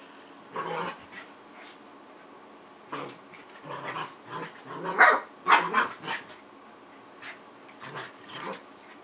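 Puppies barking and growling as they play-fight, in short bursts: one about half a second in, a busy run from about three to six seconds in, and a few softer ones near the end.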